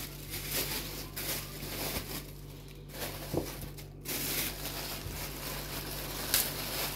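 Thin plastic carrier bags rustling and crinkling in irregular bursts as trays of minced meat are handled and unwrapped, with a steady low hum underneath.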